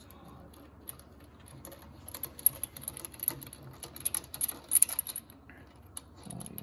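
Rapid, irregular metallic clicking and clinking from hand tools being worked on the car, densest in the middle of the stretch.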